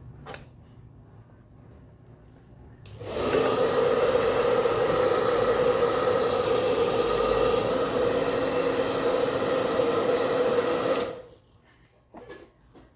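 Osterizer blender motor switched on and running steadily for about eight seconds with a constant hum, starting suddenly a few seconds in and cutting off sharply near the end.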